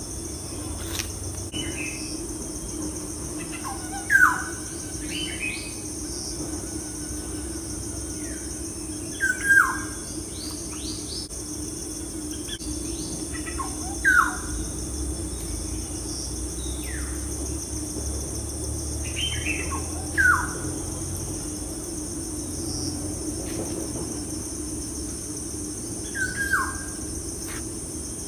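A bird calling, a short, loud call falling in pitch about every five seconds, with a few fainter chirps between, over a steady high-pitched background hum.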